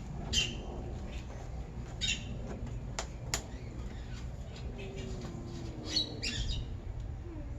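Wild birds calling outdoors: a few short, harsh chirps scattered through, two of them close together near the end. Two sharp clicks come about three seconds in, over a steady low rumble.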